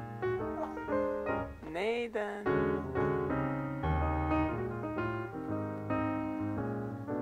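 Piano music: a steady run of notes and chords. About two seconds in, a short voice glides up and back down over it.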